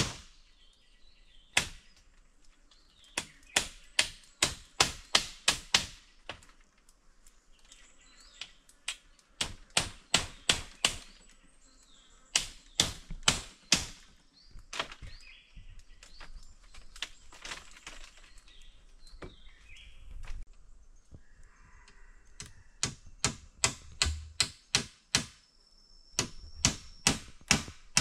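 Machete chopping bamboo: runs of sharp strokes, about three a second, each run a few seconds long, with pauses between them.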